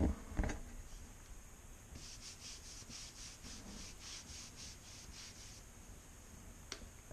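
Light rhythmic scraping of a stick stirring primer and hardener in a plastic mixing cup, about three or four strokes a second for a few seconds, after a couple of knocks at the start.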